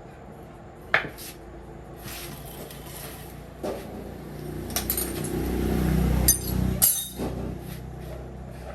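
Scattered sharp metal clinks and knocks of tools on tractor parts, with a low rumble that swells and dies away a little past the middle.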